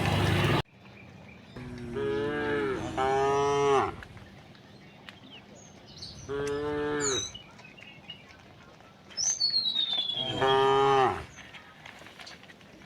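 Cows mooing: four separate moos, two close together a couple of seconds in, one around the middle and one near the end. A loud noisy sound cuts off abruptly just after the start, and faint high chirps and a falling whistle sound between the moos.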